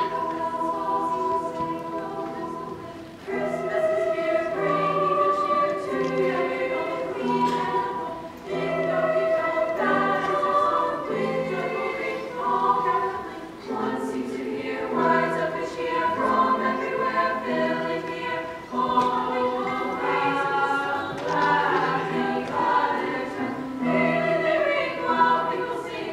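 A girls' choir singing in harmony with grand piano accompaniment, a low note repeating in a steady pulse beneath the voices.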